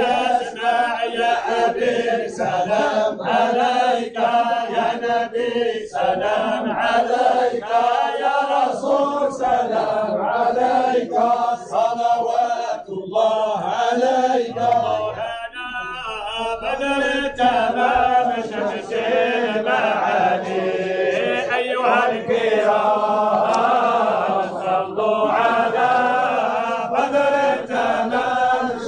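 A group of men chanting together in a Sufi dhikr of the Alawiya order, the voices rising and falling in a continuous melodic line broken by short regular pauses.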